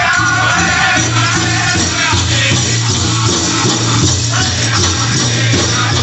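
Powwow drum group singing together over a steady beat struck on a shared big drum.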